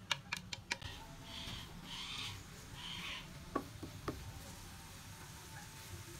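Plastic spatula stirring and scraping shredded carrot, onion and chopped green pepper around a nonstick frying pan, with a few sharp clicks in the first second and a couple of taps later, over a steady low hum.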